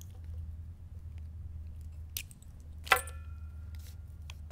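Small clicks and handling noises from a metal Neutrik-style XLR connector being unscrewed and opened by hand. About three seconds in comes one sharper metallic click that rings briefly, over a steady low hum.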